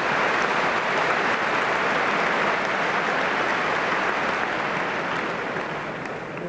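Spectators applauding a tennis match, a dense clapping that slowly dies away toward the end.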